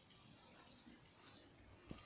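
Near silence: faint room tone, with one soft click near the end.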